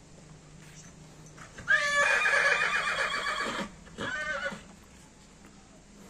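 A horse whinnying: a long, quavering whinny of about two seconds, then a shorter one half a second later.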